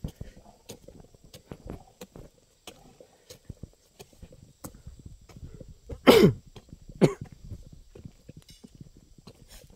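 A person coughs, loudly once about six seconds in and again about a second later, over light scuffing footsteps on a dirt track.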